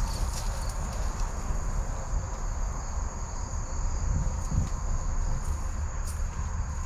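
Insects shrilling in a steady high drone over a constant low rumble, with scattered faint ticks.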